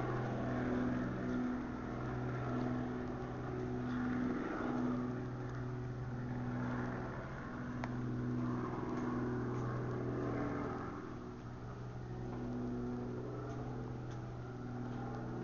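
Steady low mechanical hum holding one low tone, with a second, higher tone that comes and goes every second or so, over a light background hiss.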